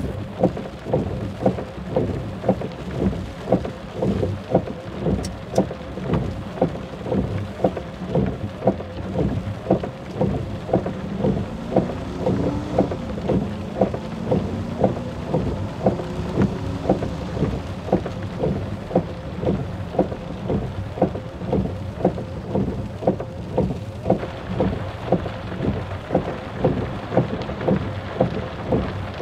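Regular low thuds, about two a second, over a steady rain-like rushing noise, with a faint wavering tone partway through.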